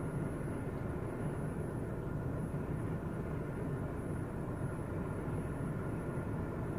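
Steady low rumble of strong blizzard wind, with a faint high whine throughout.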